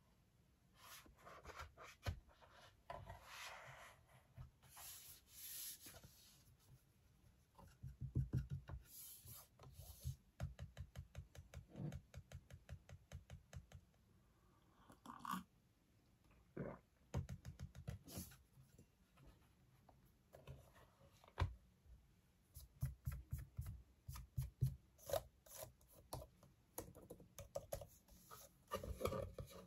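Apple Magic Keyboard case for an 11-inch iPad Pro being handled, with soft rubbing and brushing against the case. Later come runs of quick, light clicks, and near the end hands are on its keys.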